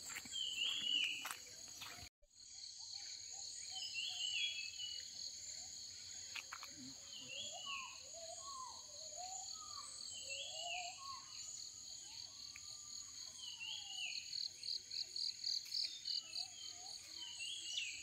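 Tropical forest ambience: a steady high insect drone that turns into a pulsing trill near the end. Over it one bird repeats a short high call every second or two, and lower sliding whistled bird notes come through in the middle. Footsteps crunch on a leaf-littered path during the first two seconds.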